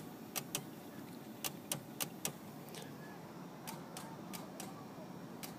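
Sharp clicks in quick pairs, three pairs in the first two and a half seconds and then fainter single clicks, as the high beams are flashed on and off with the headlight switch.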